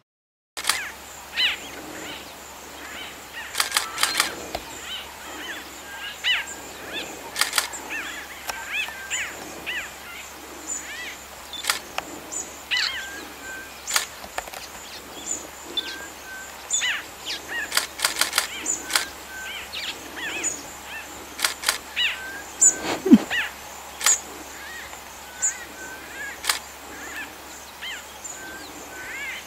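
Flock of white-fronted bee-eaters dust-bathing, giving many short chirping calls, with frequent sharp clicks and brief wing flutters. About two thirds through, one louder sound slides down in pitch.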